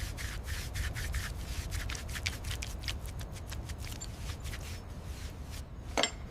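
Sanding on a Jaguar E-Type's primed bodywork: quick repeated rubbing strokes, several a second, over a low steady hum. A louder, sharper sound comes near the end.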